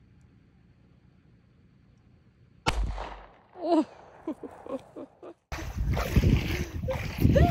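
A single handgun shot about two and a half seconds in, sharp and quickly dying away, followed by brief voices. Then, after a cut, wind buffeting the microphone over rushing water from a moving boat.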